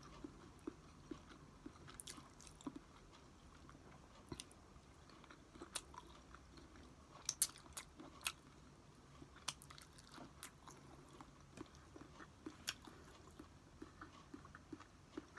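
A person eating leftovers close to the microphone: quiet chewing with scattered short, sharp clicks at irregular intervals.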